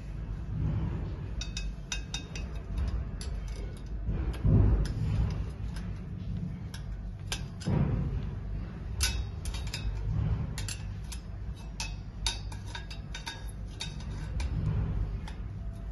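Irregular small metallic clicks and ticks of a screwdriver and pliers tightening a screw at a joint of a gold-plated iron frame, with a few dull thumps as the frame is handled.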